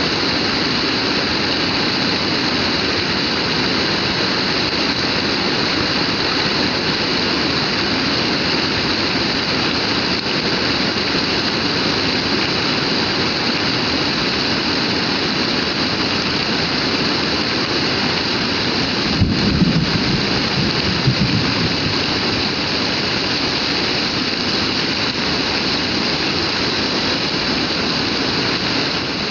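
Heavy rain falling steadily as a dense, even hiss. About two-thirds of the way through, a brief low rumble rises over it for a couple of seconds.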